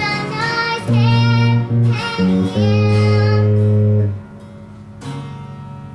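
Young girl singing the song's closing line over acoustic guitar and bass guitar. The playing stops about four seconds in, and a last chord is struck a second later and left to ring out.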